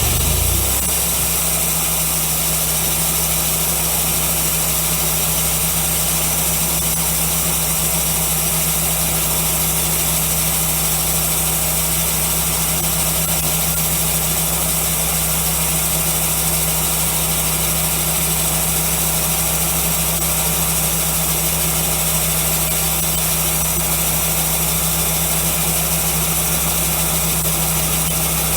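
Wood-Mizer LX150 bandsaw sawmill running, a steady machine drone with a constant low hum and hiss that doesn't change.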